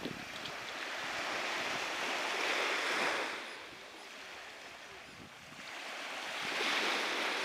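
Waves breaking and washing up the beach in two swells, about four seconds apart.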